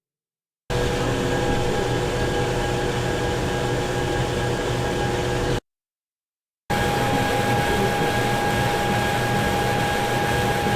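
Two separate recordings of steady industrial machinery noise, each a constant mechanical hiss and hum with a few steady tones running through it. The first starts just under a second in and stops abruptly about halfway. After about a second of silence, the second starts and runs on.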